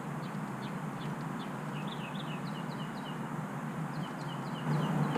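A bird singing a run of short, quick down-slurred chirps, repeated a few times a second, over a steady low hum.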